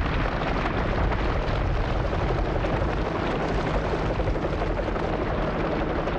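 Drilling machinery on an offshore rig running: a steady, loud rumble and rush with a low hum underneath and no distinct strokes.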